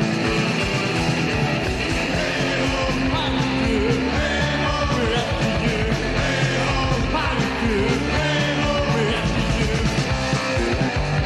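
Punk rock band playing: electric guitar, bass guitar and drums, with a yelled, sung vocal coming in about four seconds in.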